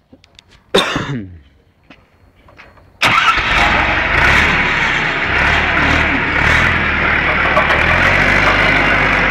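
Forklift engine running steadily and loudly, coming in abruptly about three seconds in. Before it there are a few light clicks and one brief sound falling in pitch.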